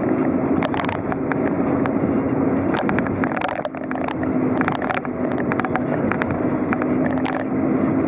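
Car engine and tyre noise heard from inside a moving car: a steady hum, with scattered short clicks and rattles, several of them in a cluster near the middle.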